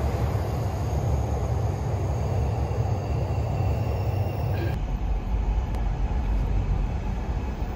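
Train running on an elevated railway: a steady low rumble with a faint high whine over it that stops abruptly just under five seconds in, after which the low rumble continues.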